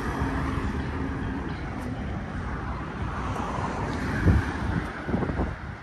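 City street noise with traffic going by, and a loud low thump about four seconds in.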